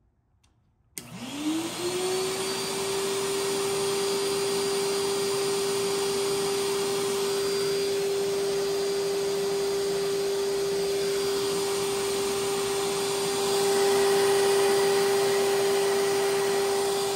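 Shop vac switched on about a second in: its motor spins up quickly and then runs with a steady hum and whine, growing somewhat louder later on. It is running on reduced voltage from a portable power station's X-Boost mode, which lowers the voltage instead of shutting off under a load above its 800 W rating.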